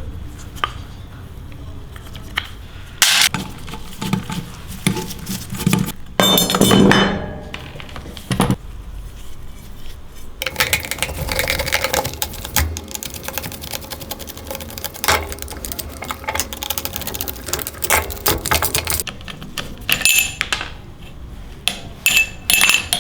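Metal parts and tools being handled during scooter repair work: scattered clinks and knocks, a ringing metallic clatter about six seconds in, and a rougher scraping stretch through the middle.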